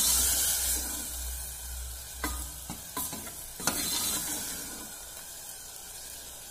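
Tomato-and-spice masala sizzling in a pressure cooker while a ladle stirs it, the sizzle loudest at first and dying down over the next few seconds. A few sharp clinks of the ladle against the cooker come about two to four seconds in.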